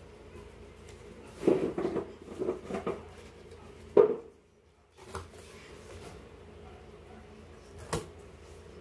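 Cardboard shipping box being opened by hand: tape peeled and flaps pulled up, with scraping and rustling of cardboard. There is a sharp knock about four seconds in and a sharp snap near the end.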